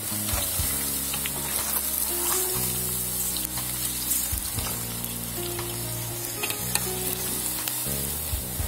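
Masala-coated cauliflower pieces sizzling steadily as they deep-fry in hot oil in an iron kadai, with a few light clicks of the metal ladle stirring them, over background music.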